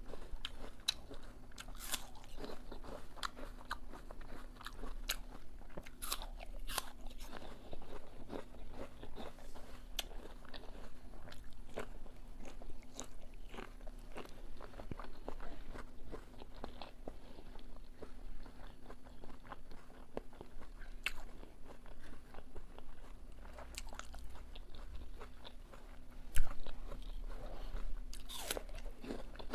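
Close-miked eating: crisp crunches and chewing of raw apple being bitten and chewed, in irregular crackly strokes over a faint steady hum, with one louder knock about 26 seconds in.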